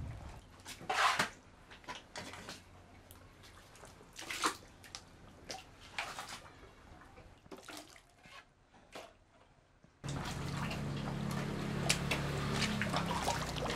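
Wet flood mud and muddy water being scooped and scraped off a floor by hand: irregular splashing and scraping noises. About ten seconds in, a steady low machine hum comes in abruptly and runs under the scraping.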